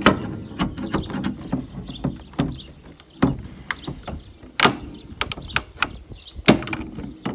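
Old, brittle plastic escape-hatch frame cracking and snapping as it is pried up off a school bus roof: an irregular run of sharp cracks and knocks. The aged plastic is breaking away in small pieces instead of coming up whole.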